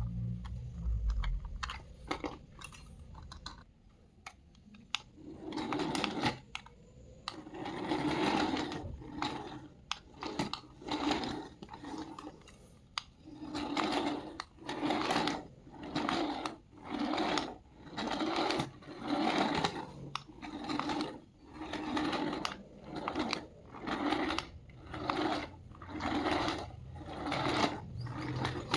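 A small electric motor whirring in short repeated bursts, about one a second, after a few scattered clicks in the first seconds.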